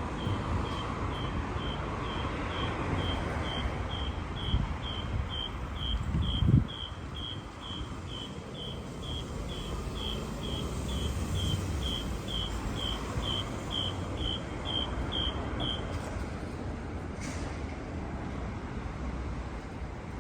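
City street traffic running, with a loud low vehicle rumble swelling about a third of the way in. Throughout most of it a high electronic beeper sounds about three times a second, stopping near the end.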